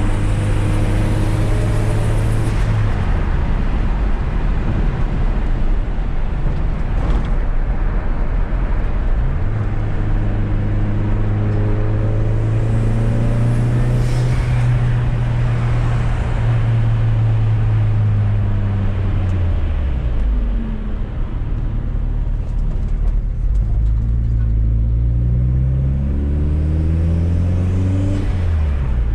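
Fiat Coupé 16V Turbo's turbocharged four-cylinder engine pulling under way, heard from the car: revs held steady, dropping away about three seconds in and again around twenty seconds, then climbing steadily toward the end.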